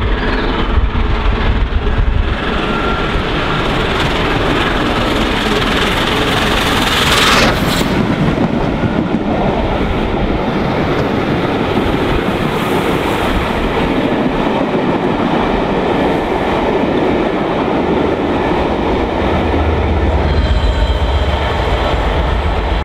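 Peppercorn A1 4-6-2 steam locomotive 60163 Tornado passes at speed while accelerating a passenger train, with a sudden loud burst about seven seconds in. Then comes the steady rumble and clickety-clack of its coaches. Near the end a diesel locomotive at the rear of the train passes.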